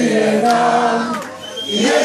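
A crowd of people singing together in unison, holding long notes, with a short break about a second and a half in.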